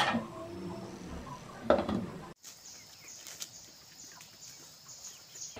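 A pot lid clanks, sharply at the start and again about a second and a half in. After an abrupt cut, outdoor ambience follows: a steady high-pitched insect drone with a few faint chirps.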